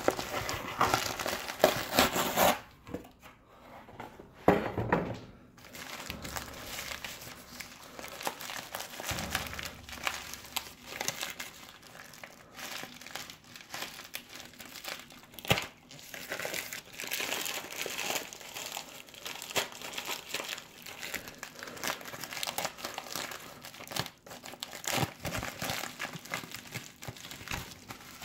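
Packing material in a shipping box crinkling and rustling almost continuously as it is pulled apart by hand, with a short lull about three seconds in.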